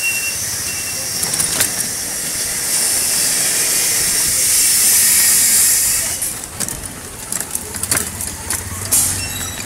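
Busy street traffic heard from a moving vehicle: a steady rush of noise that swells into a loud hiss for about three seconds midway, then eases. Scattered clicks and rattles run through it, and a low engine hum comes in near the end.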